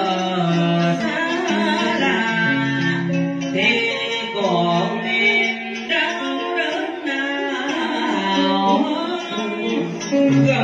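Cải lương vọng cổ accompaniment on plucked strings: a scalloped-fret guitar and a đàn sến playing sliding, bending melodic lines.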